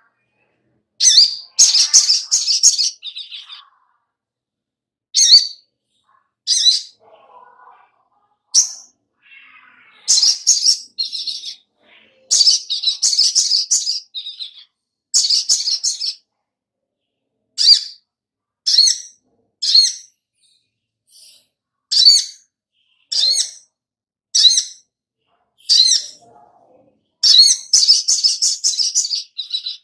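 Caged sogok ontong sunbird singing: sharp, high chirps, some as single notes and some strung into rapid runs lasting a second or two.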